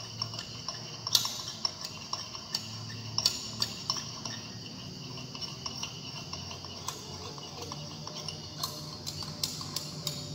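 Glass stirring rod clinking and tapping irregularly against the wall of a glass beaker as a phenol-formaldehyde reaction mixture is stirred, with a faint glassy ring after the taps.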